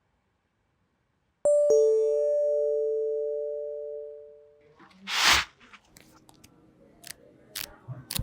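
Two-tone ding-dong chime, a higher note struck and then a lower one, both ringing on and fading over about three seconds. A short rushing noise follows about five seconds in, then a few sharp clicks near the end.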